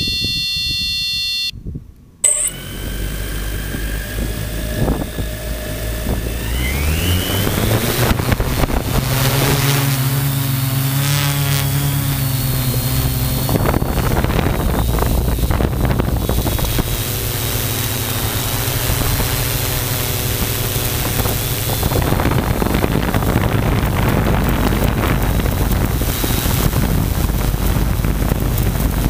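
A steady electronic beep for the first second and a half. Then a multirotor drone's electric motors and propellers spin up with a rising whine over several seconds. They settle into a steady hum in flight, with a rushing noise over it.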